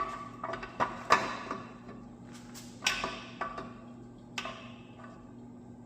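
Metal engine internals, the slant six's lifters and camshaft being removed, clinking against each other and the block with short metallic rings: about ten clinks in the first four and a half seconds, the loudest just over a second in, then it goes quiet.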